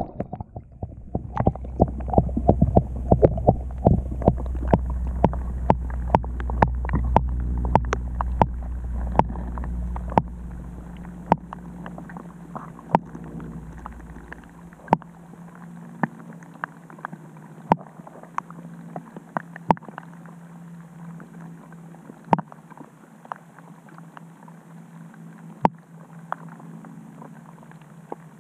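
Underwater sound heard through a camera submerged in shallow pond water: a low rumble that fades away about halfway through, a steady low hum, and scattered sharp clicks.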